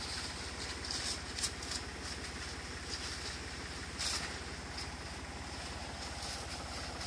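Small engine of a motorized orchard sprayer running steadily as it blows a spray mist up into chestnut trees, with short bursts of high hiss on top, the strongest about four seconds in.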